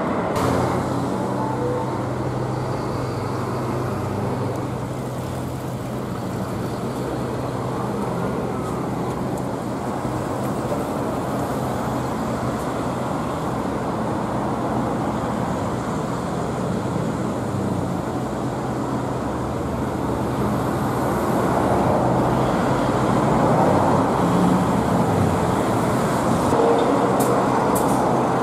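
Diesel truck engine running at low speed with a steady low hum, amid street traffic noise; it grows a little louder in the last few seconds as the truck comes closer.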